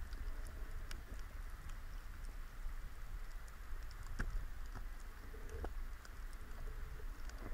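Underwater ambience picked up by a submerged camera: scattered sharp clicks and crackles over a steady low rumble of water moving past the housing.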